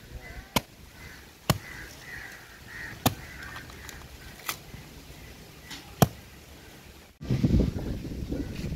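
Knife chopping on a cutting surface in single sharp strokes, five of them spaced about one to one and a half seconds apart. Near the end the sound breaks off abruptly and a loud rustling rumble takes over.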